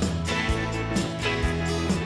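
Background music with held notes over a steady beat of about two thumps a second.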